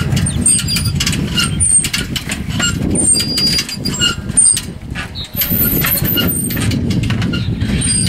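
Purple martins calling in many short, high chirps over a steady low rumble.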